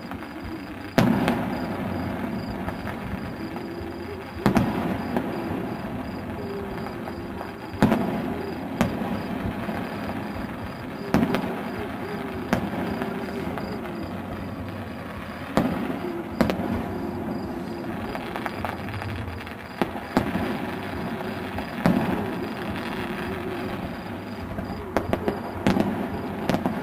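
Aerial firework shells bursting, heard from afar: sharp single bangs every two to four seconds, each dying away in a rolling echo, with a quicker run of several cracks near the end.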